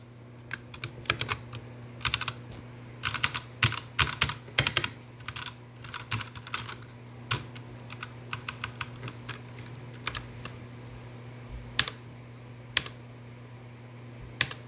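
Typing on a Redragon K617 Fizz mechanical keyboard: quick runs of keystrokes for the first few seconds, then scattered single key presses that grow sparse toward the end, over a steady low hum.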